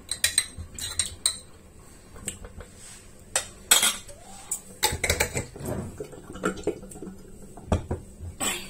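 A metal spoon clinking and knocking against a glass jar and a ceramic bowl as green olives are scooped out and dropped in, with glass jars handled and set down on the counter. Irregular sharp clinks, the loudest a few seconds in and near the end.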